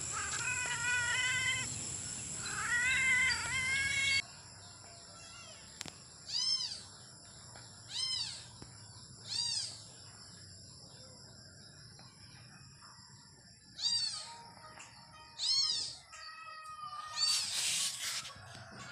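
A cat meowing again and again: about seven short, high meows, each rising and falling, spaced a second or more apart. In the first few seconds there are two longer wavering calls.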